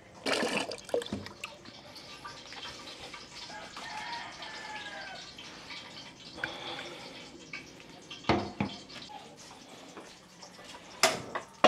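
Tap water running and splashing at a sink as a metal cooking pot is rinsed, with a few sharp knocks of the pot later on.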